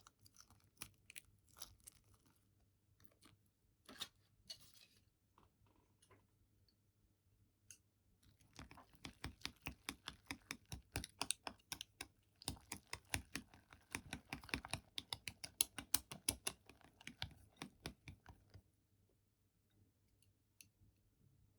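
Natto being mixed in a bowl with its sauce, nametake and yuzu kosho: scattered small clicks and packet handling at first, then about ten seconds of quick, regular clicking and tapping of the utensil against the bowl as the sticky mixture is stirred.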